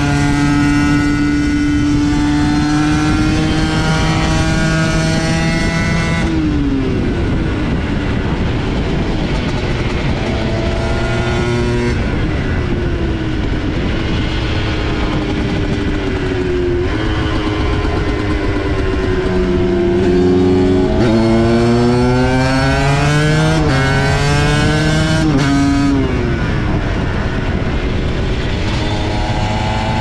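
Aprilia MX125 supermoto's 125 cc two-stroke single-cylinder engine under hard acceleration, its note climbing through the revs and dropping back sharply at each upshift, several times over.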